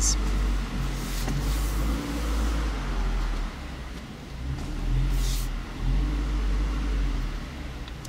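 Scion tC's 2.5-litre four-cylinder engine running at low revs as the car creeps in reverse, a low hum heard from inside the cabin that swells and eases as the throttle changes. Two brief hisses are heard, about a second and a half in and about five seconds in.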